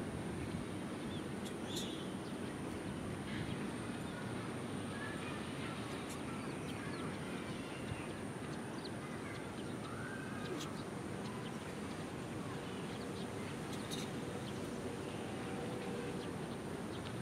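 Outdoor background noise, a steady low rumble, with scattered faint bird chirps and calls throughout.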